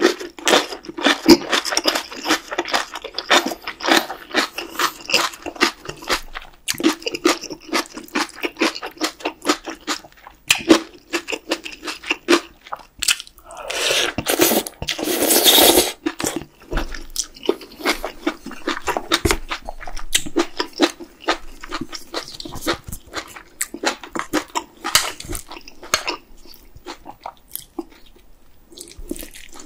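Close-miked chewing and wet mouth sounds of a person eating spicy beef-brisket yukgaejang with rice. About halfway through comes one long slurp of noodles from the stew, lasting about two seconds and the loudest sound.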